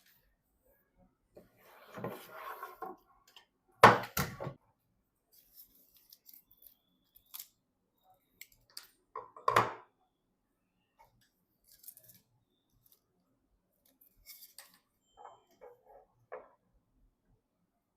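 Hands working on computer parts: a short rustle, then a sharp knock twice just before four seconds, another knock near ten seconds, and light clicks and taps in between.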